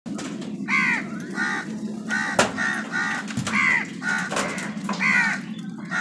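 House crows cawing, about ten harsh caws in a row, the longer arching ones about a second in, midway and near the end, with shorter clipped caws between. A steady low hum runs underneath.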